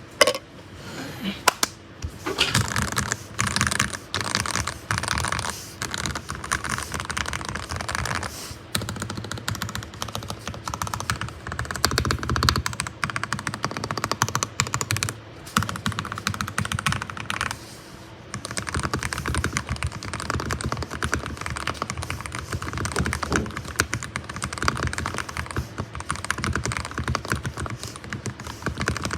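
Typing on a mechanical keyboard fitted with Gateron Oil King switches, which are factory-lubed, with a POM stem and nylon top housing. It is a fast, continuous run of key clacks, broken by a few short pauses.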